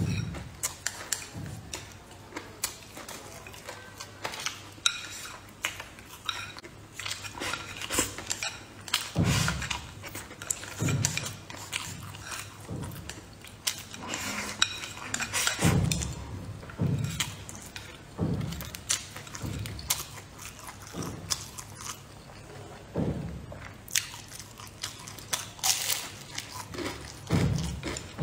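Close-up chewing and mouth sounds of a person eating fried fish and rice, in repeated bites. Wooden chopsticks click against the bowl now and then.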